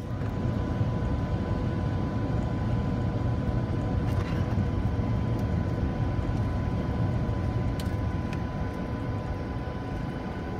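Steady cabin noise of an airliner in flight: an even low rumble of the engines and airflow, with a faint steady tone above it.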